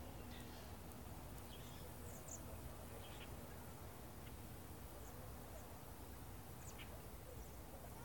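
Scattered faint chips and short calls from a large flock of small birds flying over at dusk, over a steady low background rumble.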